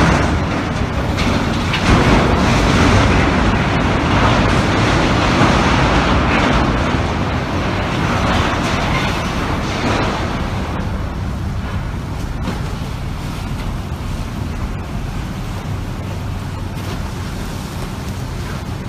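Loud rushing wind noise on a phone microphone mixed with the grinding, crunching noise of a large ferry's bow pushing into a steel dockside gantry crane, rougher and louder over the first ten seconds, then settling to a steadier rush.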